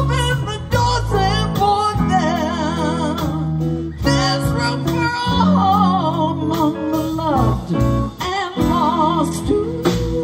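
Live rock band playing a song: electric guitars, bass and drums, with a woman singing lead in a wavering, vibrato-laden voice over the chords.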